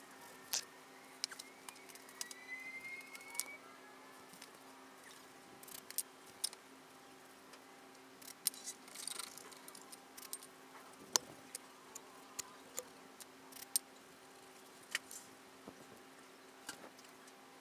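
Scattered light clicks and metallic taps from hand tools and metal parts being handled during engine work, over a faint steady hum. A short squeaky scrape comes about two to three seconds in.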